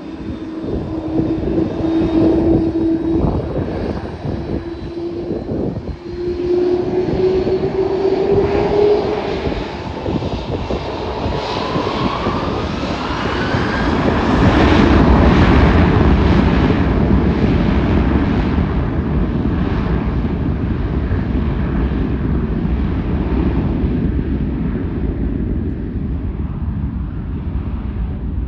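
Airliner engines with a whine that rises in pitch, building to a loud roar about halfway through, then slowly fading as the aircraft moves away.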